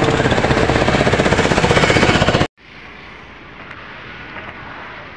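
Loud, rapid, even fluttering rattle of wind and road buffeting on a phone microphone while riding a bicycle along a highway. It cuts off suddenly about two and a half seconds in and gives way to faint outdoor background.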